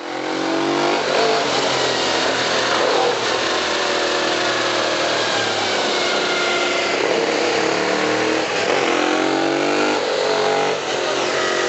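Sportbike engine revving up and down repeatedly, its pitch rising and falling, while the bike is held up on its rear wheel by a wheelie-simulator rig.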